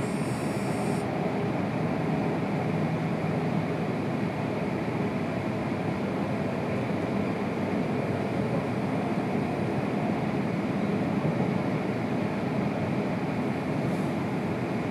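Steady running noise of a Tohoku Shinkansen train heard from inside the passenger car: an even rumble and rush of the wheels on the rails.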